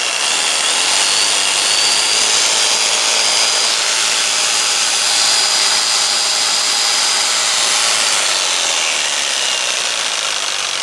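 A 100 V Japanese-market electric jigsaw switched on and running, a loud steady motor noise with a high whine. It starts abruptly and begins to fade near the end.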